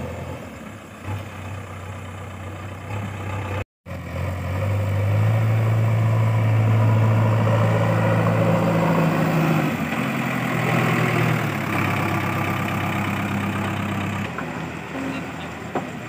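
JCB 3DX backhoe loader's diesel engine running as the machine works with its front loader bucket, louder for several seconds in the middle and easing off near the end. The sound drops out for a moment about four seconds in.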